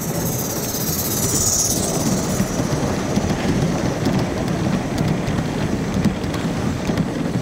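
Large-scale model Southern Pacific Daylight steam locomotive and its passenger cars rolling close past, the wheels clattering and clicking over the track. A brief high squeal falls in pitch about a second in.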